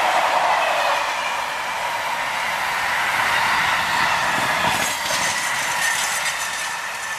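Intermodal freight train wagons rolling past at speed: a steady rush of steel wheels on the rails with a faint high ringing from the wheels. In the second half a quick run of wheel clacks over the rail joints.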